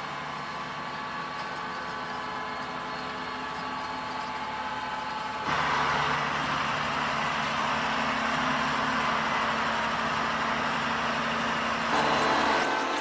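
Farm machinery engines running steadily with a constant drone. The sound jumps abruptly louder about five and a half seconds in and again near the end.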